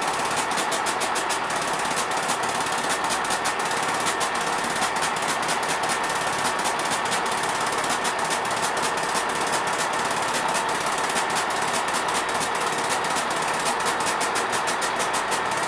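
Underfloor diesel engines of a diesel multiple-unit train idling while it stands at the platform: a steady engine clatter with fast, even ticking.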